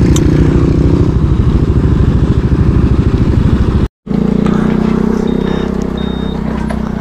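Motorcycle engine running while riding, with a steady pulsing engine note. The sound cuts out for a split second about four seconds in, then the engine comes back smoother.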